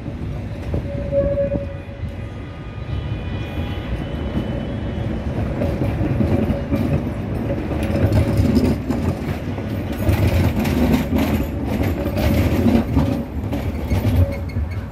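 Articulated tram rolling slowly past on curved track, its wheels rumbling on the rails, louder as it draws close about six seconds in, with many short clicks and knocks and a steady whine.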